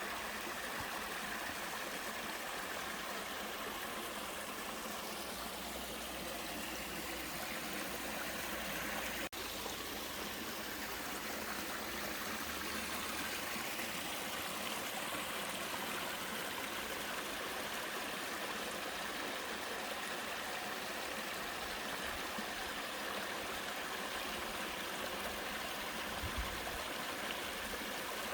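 A mountain stream running down a two-tier slide waterfall over rock: a steady rush of water, with a momentary break about nine seconds in.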